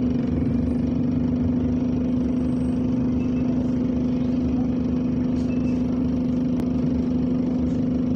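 Bus engine idling at a high idle speed, a steady, unchanging drone heard from inside the bus.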